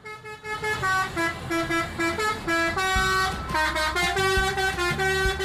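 A bus's multi-tone 'telolet' horn playing a quick tune of short, stepped notes, with a low rumble under it from about halfway.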